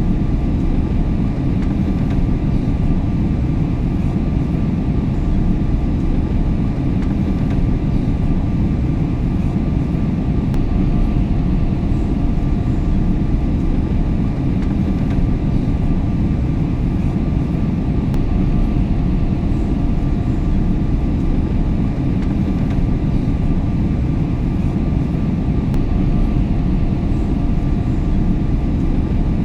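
Aeroplane cabin noise in flight: a steady, deep rumble of engines and airflow, with two faint steady hums above it. It does not change.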